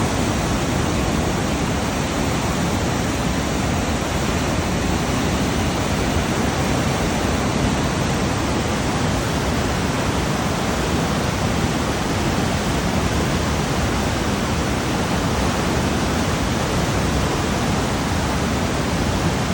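Fast-flowing water of the Niagara River rushing steadily, a dense, even roar with no breaks.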